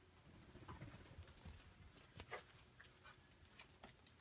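Faint scattered clicks and scuffs of Havanese puppies moving about on puppy pads, the sharpest about two seconds in, over a low hum.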